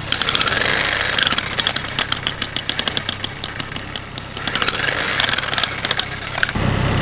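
Demolition hammer (jackhammer) chiselling into rock in a post hole: a rapid, steady hammering in bursts. The hammering stops near the end, leaving a louder low hum.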